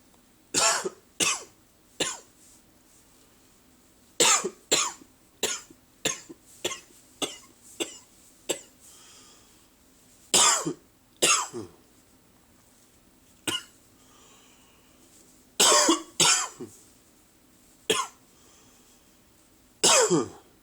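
A man's early-morning coughing: short coughs in bursts of one to six, a few seconds apart, about twenty in all.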